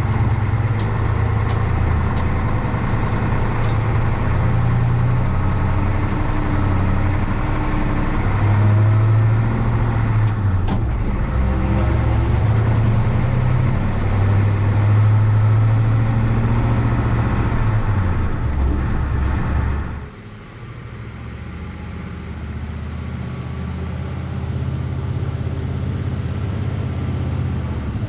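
Truck engine running while pulling a heavily loaded log trailer, its note stepping up and down a few times. About two-thirds of the way through, it drops suddenly to a quieter engine sound that slowly builds again.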